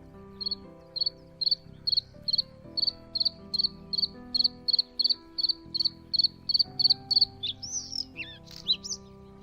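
A run of about seventeen short, high chirps, evenly spaced at roughly two and a half a second, each a quick pulsed trill. Near the end it gives way to a few swooping whistled bird calls, over soft background music.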